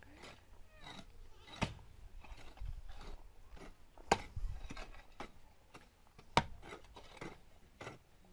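Hoe blade chopping into packed earth and scraping it level, three sharp strikes about two seconds apart with fainter knocks and scrapes between.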